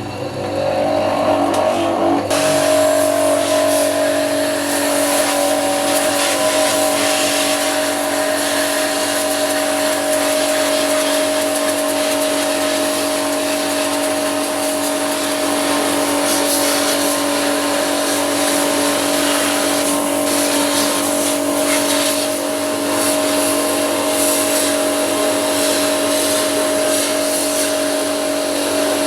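Small electric high-pressure washer pump running steadily with the hiss of its water spray, of the kind used to wash an air conditioner's coils. It steps up to full running about two seconds in.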